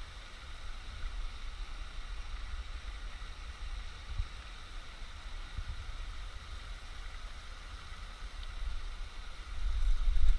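Steady rush of flowing water, with a low rumble on the microphone underneath that swells louder near the end. Two dull bumps come through about four and five and a half seconds in.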